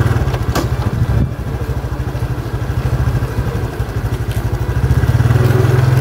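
Small motorcycle engine running at a steady low speed as it rides along, growing louder near the end, with a couple of short knocks in the first second or so.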